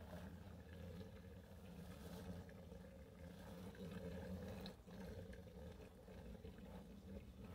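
Faint steady low hum with faint wet handling sounds and a few light clicks, as filter wool is pressed down into water inside a plastic drum.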